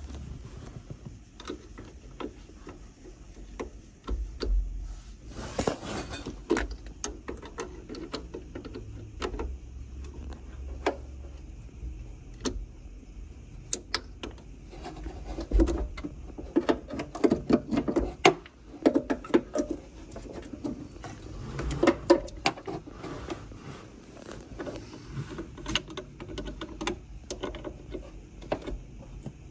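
Irregular metallic clicks, clinks and knocks of a hand tool on a car battery's 10 mm terminal nuts and clamps as the terminals are loosened to disconnect the battery. They come thickest in the middle stretch.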